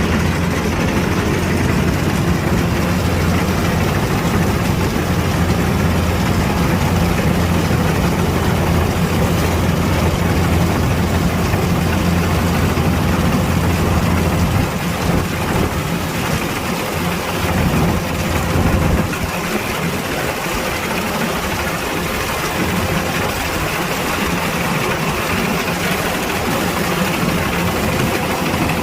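Kubota DC-105X combine harvester's diesel engine running steadily with a low hum; the low part of the hum drops back a little about halfway through and then holds.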